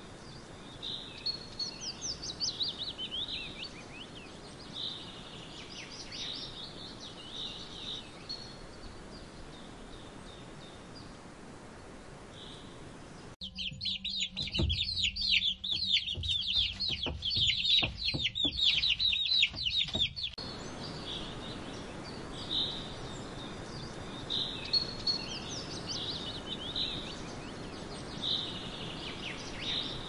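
Small birds chirping on and off. About a third of the way in, this cuts to some seven seconds of chicks peeping rapidly and continuously, with soft knocks beneath. The scattered birdsong then returns.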